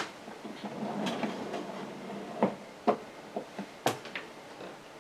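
Plastic slide control of a toy pizza oven being pushed along its track, moving the baking pan inside: a soft scraping for a second or so, then a few separate clicks and taps.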